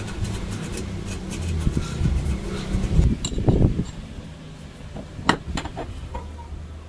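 Small steel parts clinking and tapping as they are handled and set down on a steel tube, with sharp single clinks about three seconds and five seconds in, over a low steady hum.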